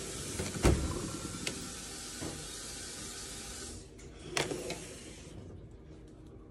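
A steady hiss that stops about five seconds in, with a sharp knock about a second in and another near four and a half seconds.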